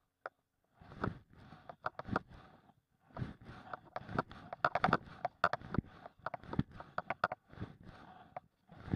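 Fly line being stripped in by hand on a fly rod, heard as irregular short scraping and rubbing pulls with sharp clicks, together with the angler's jacket sleeve brushing close to the camera. The pulls come thickest through the middle, with brief pauses between them.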